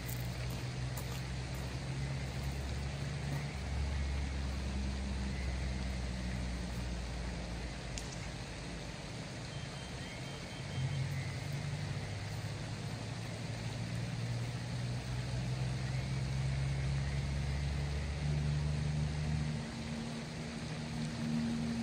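A low, steady engine hum that shifts pitch a few times, with faint short chirps over it.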